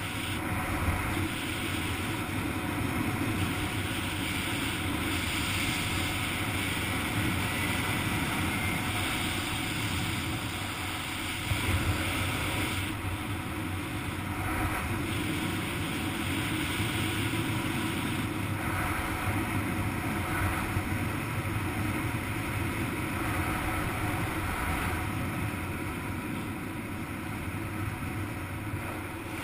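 Steady wind rushing over a helmet camera's microphone while flying under an open parachute canopy, with a couple of brief louder gusts.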